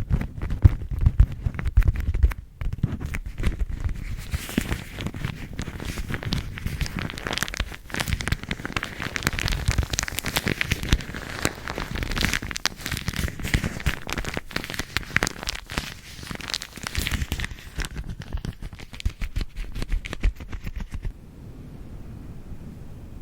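A bag being crinkled and crumpled close to the microphone in dense, irregular crackles. The crinkling stops about two seconds before the end, leaving a soft, steady hiss.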